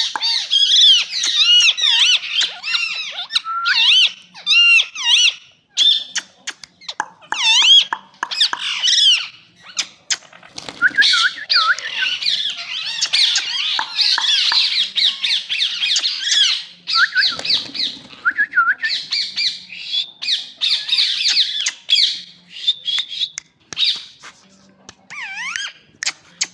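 Several rose-ringed (ring-necked) parakeets squawking and chattering, with many quick calls that glide up and down in pitch and overlap, broken by brief lulls.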